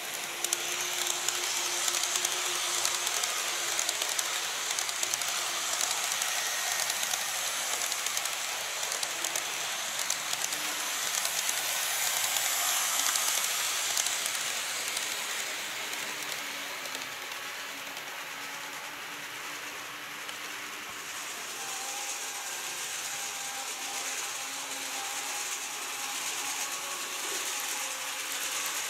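Model electric trains running on track: the steady whine of their small motors and gears over a fast clicking of wheels on the rails. It is loudest about 13 seconds in as a model E257 series express passes, and a higher-pitched motor whine comes in about two thirds of the way through.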